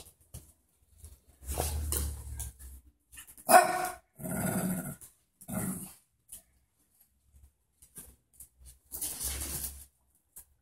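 Small pet dogs barking in several short bursts with pauses between, the loudest about three and a half seconds in.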